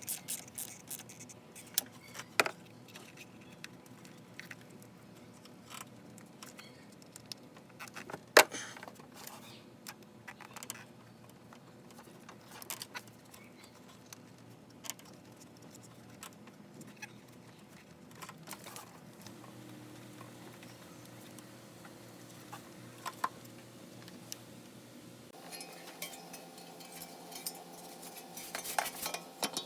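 Scattered metallic clinks and sharp knocks of hand tools being handled during car starter replacement work, with the loudest knocks about two and eight seconds in and quicker clicking near the end.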